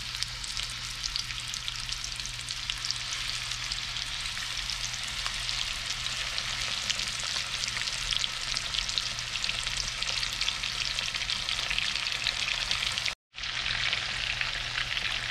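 Mahi-mahi fillets sizzling in melted butter and vegetable oil in a frying pan, a steady crackling fry. The sound drops out for a moment about 13 seconds in, then resumes.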